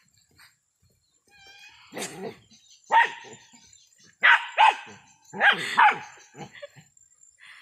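Dogs barking in play, a run of about six sharp barks starting about two seconds in, some in quick pairs.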